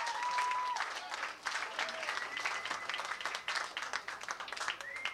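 Club audience applauding and cheering between songs, dense clapping with a few held whistles, dying away near the end.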